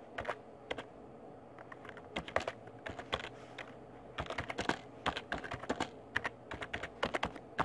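Typing on a computer keyboard: irregular runs of key clicks, a few at first and then longer bursts through the rest.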